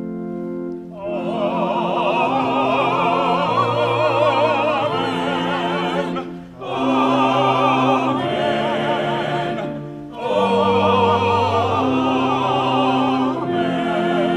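Church choir singing a closing benediction response with organ accompaniment. A held organ chord opens, and the voices enter about a second in. They sing three phrases with a short breath between each, the voices sounding with a marked vibrato.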